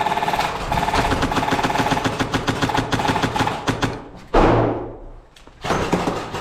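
Electric airsoft rifle (AEG) firing long full-auto bursts, a fast stream of clicks over the gearbox's whir. The firing stops about four seconds in with a loud thump, then starts again shortly before the end.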